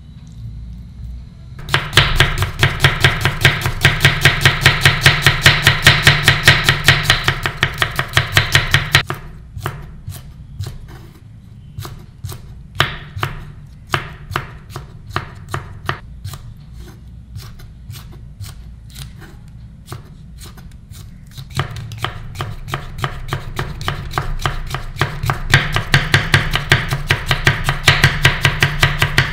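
Chef's knife chopping vegetables on a cutting board. A fast, steady run of knife strikes is followed by slower, uneven cuts through green beans in the middle, then fast chopping again near the end as carrots are cut into thin strips.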